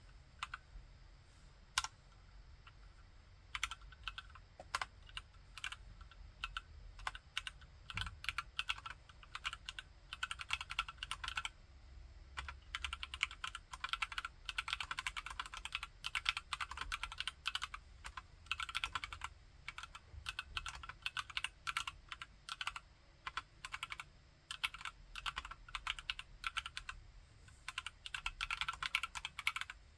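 Typing on a TKC Candybar mechanical keyboard with Akko POM Brown switches. There are scattered single keystrokes at first, then fast runs of typing in bursts with short pauses between them.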